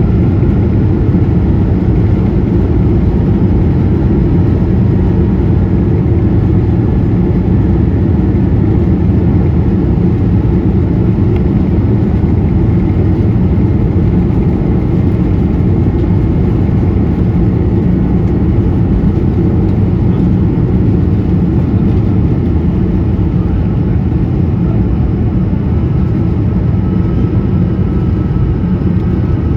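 Steady cabin noise of an Airbus A220 airliner: the Pratt & Whitney PW1500G geared turbofans running, heard as a low rumble and rush of air with a faint steady whine on top.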